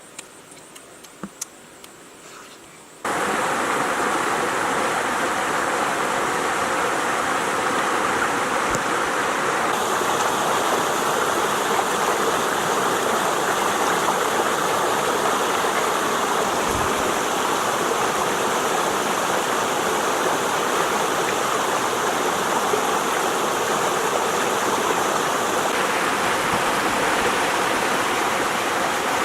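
A few faint clicks, then rushing water starts abruptly about three seconds in and runs on loud and steady, like a stream or small waterfall.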